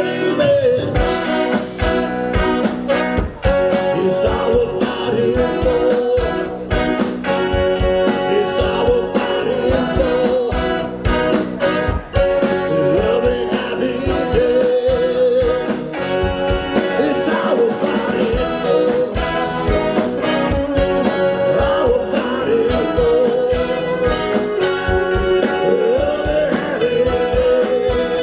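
Live rock band playing an instrumental passage, with a lead line bending and wavering in pitch over drums and a steady rhythm section.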